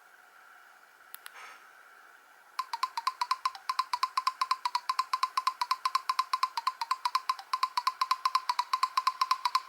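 Nokia 113 ringtone starting about two and a half seconds in: a fast, even run of short clicky beeps, mostly on one pitch. Before it, faint hiss and a couple of soft clicks.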